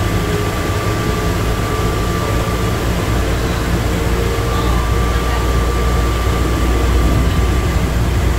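Plane Train automated people mover car running at speed through its tunnel, heard from inside the car. It makes a steady low rumble that grows a little louder partway through, with a thin steady high whine above it.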